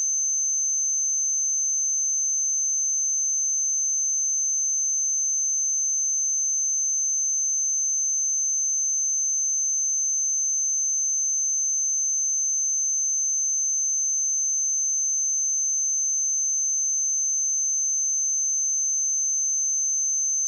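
A steady, unbroken 6225 Hz sine-wave test tone: a single high-pitched pure tone at constant loudness.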